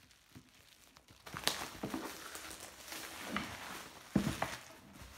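Thin plastic shrink-wrap film crinkling and rustling as it is peeled off and crumpled from a laptop box, with a few sharper crackles and a louder bump about four seconds in.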